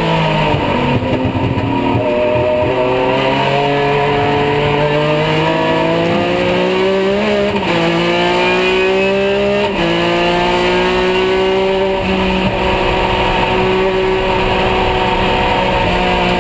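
Porsche 911 GT3 R race car's flat-six engine heard from inside the cockpit under hard acceleration: revs climb steadily, drop sharply with upshifts about seven and a half and ten seconds in, then hold fairly steady.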